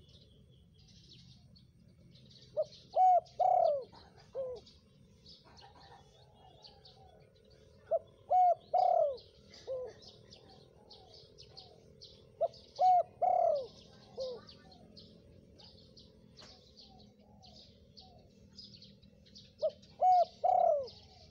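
Spotted dove cooing its song four times, about every five to six seconds; each phrase is four or five short coos, the middle ones loudest. High chirps of other small birds run underneath.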